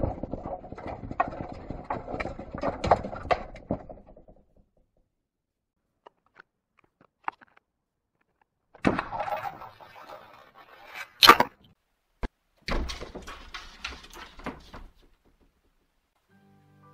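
A calico cat scrabbling at and pushing open a fusuma sliding door and clambering into the closet: bursts of scraping and rustling with small knocks, separated by silent gaps, and one sharp knock partway through.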